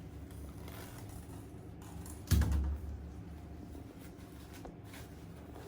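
A single sudden thump about two seconds in, with a short deep rumble after it, over a low steady background noise.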